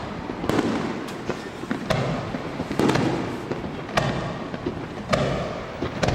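Fireworks display: aerial shells bursting in quick succession, each a sharp bang followed by a booming rumble, with smaller cracks in between.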